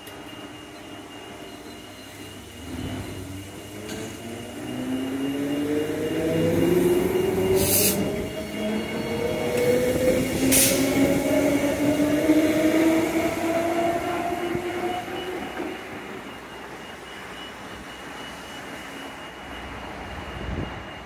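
Transperth electric multiple unit pulling away from the platform: its traction motor whine rises steadily in pitch as the train accelerates, and it fades off after about 15 seconds. Two brief sharp high-pitched noises come out about 8 and 10.5 seconds in.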